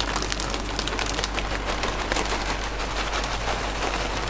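Dry spelt pasta strands being poured from a crinkling plastic bag into a pot of boiling water: a dense, continuous crackle of small clicks and rustles.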